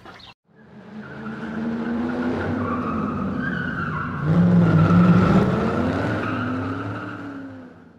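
A car engine sound with a tyre squeal, edited in for the outro: it fades in after a brief cut, gets louder about four seconds in, and fades out at the end.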